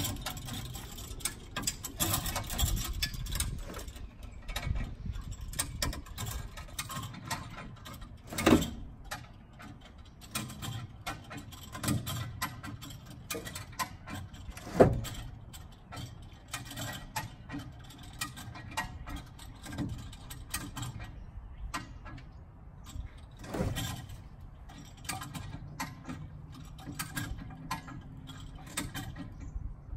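Irregular metal clicking, creaking and clunking as a bus's Detroit Diesel 8V71 engine is drawn out along its rails by cable, with three louder clunks along the way.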